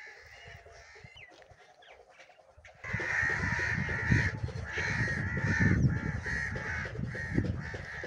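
A flock of crows cawing over and over, the calls thickening about three seconds in, over a low rumble.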